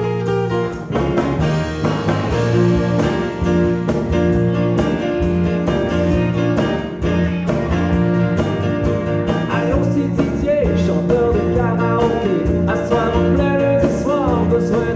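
Live rock band playing the instrumental intro of a song: a drum kit keeping a steady beat under guitars, bass and keyboards.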